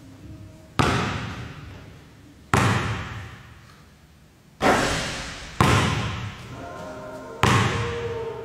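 Basketball bouncing on a hardwood gym floor: five sharp thuds a second or two apart, each followed by a long echo in the large hall.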